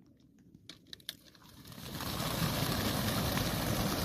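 A few faint clicks, then from about a second and a half in a rising, steady rush of wingbeats as a large flock of racing pigeons is released and takes off together.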